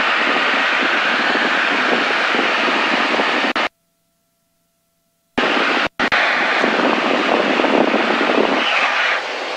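Steady in-cabin drone of a Piper Cherokee 160's four-cylinder Lycoming engine and propeller in level flight. The sound cuts out abruptly for about a second and a half after roughly three and a half seconds, then again very briefly, and comes back unchanged each time.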